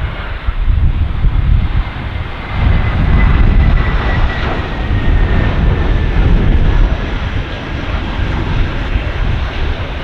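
Airbus A320's CFM56 jet engines running as the airliner comes in to land, with a faint high whine that falls slightly in pitch. Strong wind buffets the microphone, giving a gusty low rumble.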